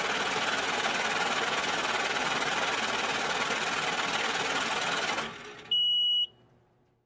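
Banknote counting machine running as it riffles through a stack of bills, stopping a little after five seconds in. Then a single high electronic beep of about half a second signals that the count is done.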